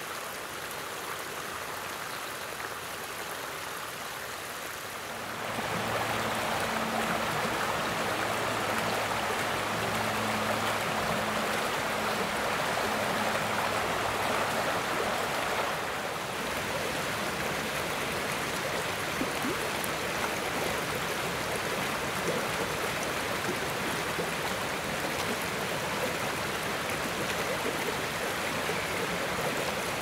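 Small stream running steadily over stones and a low weir, a continuous rushing of water that gets louder about five seconds in and eases slightly around the middle.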